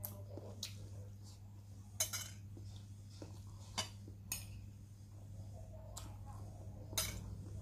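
A metal spoon clinking and scraping against a ceramic bowl as rice is scooped up and eaten. There are about six sharp clinks, the loudest about two seconds in and again near the end.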